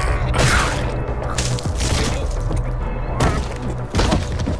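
Anime soundtrack: dramatic music under a series of heavy blows, about five sharp hits, as a creature is beaten to death.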